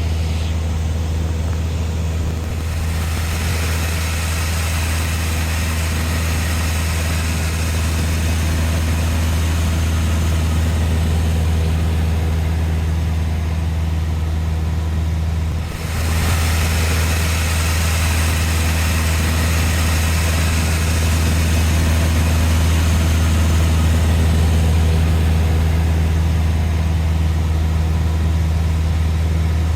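Cessna 172's piston engine and propeller running steadily at takeoff power, heard inside the cabin as a loud, even low hum. The sound dips briefly about halfway through, then carries on unchanged.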